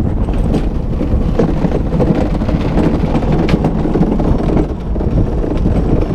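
Gravity luge cart rolling downhill at speed on a concrete track: a steady rumble of its wheels with scattered rattles and knocks, under heavy wind buffeting on the microphone.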